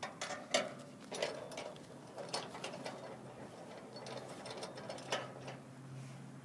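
Irregular clicks, knocks and rattles of an umbrella-holder clamp being fitted and tightened onto an aluminium bleacher seat by hand.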